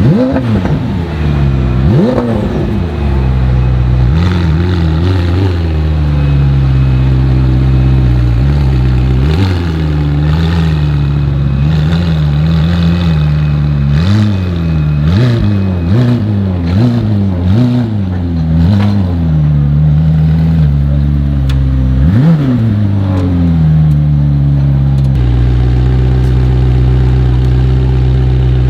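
Supercar engine idling and being revved hard several times: a sharp rev just after the start and another near 2 s, a run of quick throttle blips through the middle, a last rev near 22 s, then settling back to a steady idle.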